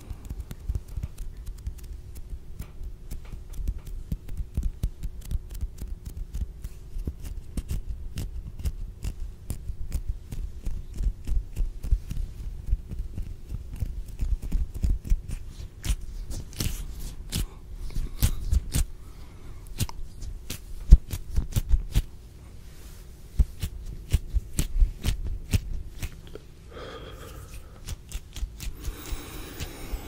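Close-miked ASMR hand sounds: fingers and palms rubbing, snapping and tapping right at a condenser microphone, giving a fast crispy crackle of small clicks over low thumps. One sharp knock stands out a little past two-thirds of the way through.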